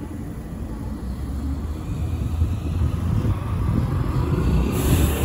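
Low rumble of city trams and street traffic, growing louder, with a short burst of hiss near the end.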